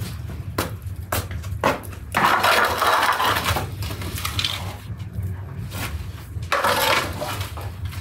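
Metal baking pans knocking and scraping as they are pushed onto the brick floor of a wood-fired oven: a few sharp knocks, then two longer scrapes, over a low steady rumble.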